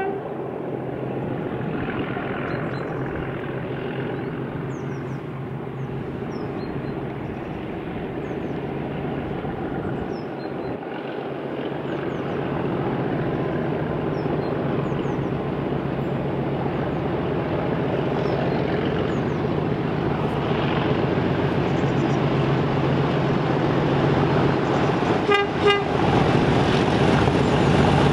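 Class 37 diesel locomotive's English Electric V12 engine approaching under power, its drone growing steadily louder, with a short horn blast near the end.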